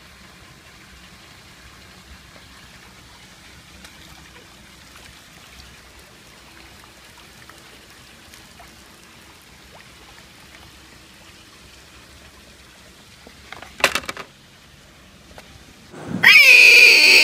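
Pool water features trickling and splashing steadily. About fourteen seconds in comes a brief loud clatter, and near the end a sudden, very loud shriek that falls in pitch, a jump-scare sound effect laid over a close-up photo of a spider.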